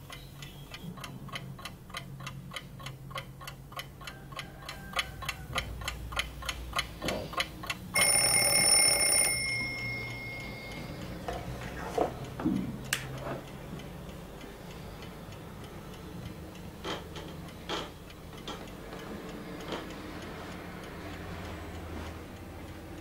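Bedside alarm clock ticking fast and steadily, then its bell ringing loudly for just over a second about eight seconds in and cut off abruptly. After it come a few scattered knocks and thuds.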